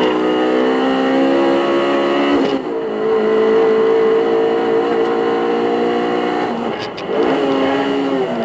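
Honda Civic Type R Mugen RR's 2.0-litre four-cylinder engine heard from inside the cabin, pulling hard on track with its pitch climbing. It drops at an upshift about two and a half seconds in, then holds a high note. It breaks off briefly again about seven seconds in and picks up at a lower pitch.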